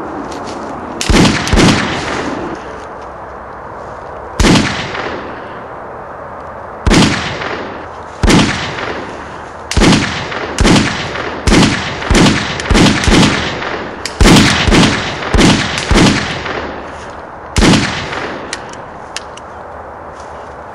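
A gunfight: about twenty gunshots, each with a short echoing tail. The first few come singly, seconds apart, then a quick run of several shots a second follows in the middle, with one last shot near the end.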